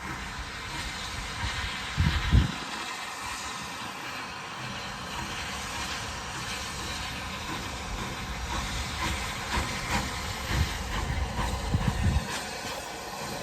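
N gauge model train running along the track: a steady hiss of motor and wheels with faint clicks from the rails. A low bump about two seconds in, and more near the end.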